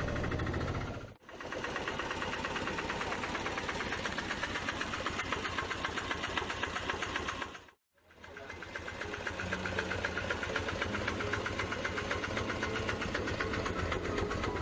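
Auto-rickshaw engine running with a fast, even knocking beat. The sound drops out briefly twice, about a second in and about halfway.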